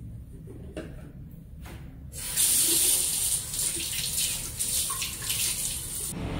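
Bathroom sink tap turned on about two seconds in, water running and splashing as a face is washed; it cuts off abruptly near the end.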